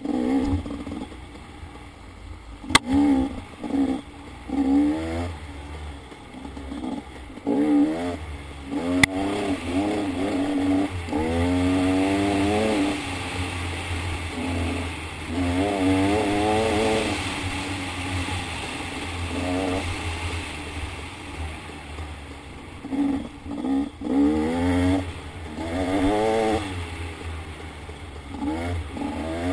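Dirt bike engine revving in many short throttle bursts, its pitch rising with each burst as the bike climbs a rough trail. Clattering from the ride runs underneath, with a couple of sharp knocks in the first ten seconds.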